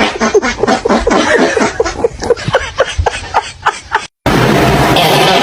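A person laughing hard in rapid, repeated bursts for about four seconds, then an abrupt cut to a steady hiss.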